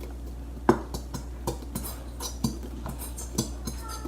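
Scattered light clicks and taps of a utensil and plastic containers being handled over a bowl of homemade slime.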